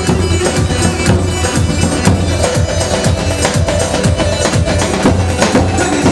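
Kurdish folk dance music with a steady drum beat under held melody tones, from the wedding band's electronic keyboard.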